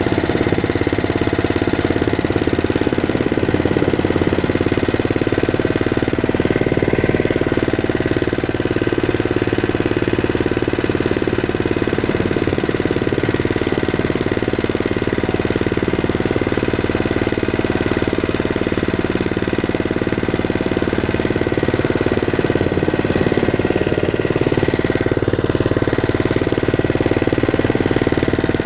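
Single-cylinder engine of a two-wheel walk-behind tractor running steadily as the machine drives along a dirt track.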